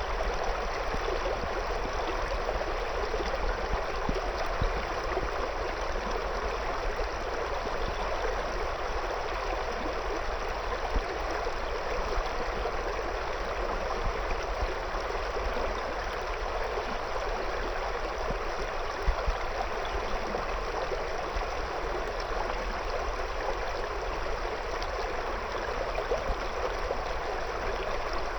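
River water flowing and babbling steadily around stones.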